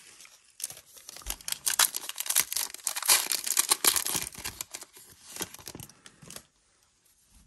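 Foil wrapper of a Donruss football trading-card pack crinkling as it is torn open and the cards are slid out. The crackling starts about half a second in, is loudest in the middle, and stops about six and a half seconds in.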